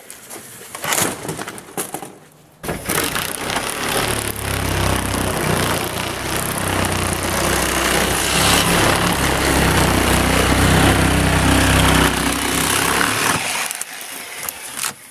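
An engine starts up about two and a half seconds in and runs steadily for about eleven seconds before stopping near the end. A few knocks come before it.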